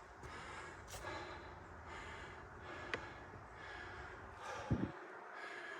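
Faint heavy breathing of a winded man on foot, each breath swelling and fading in a steady rhythm. A single dull thump comes near the end.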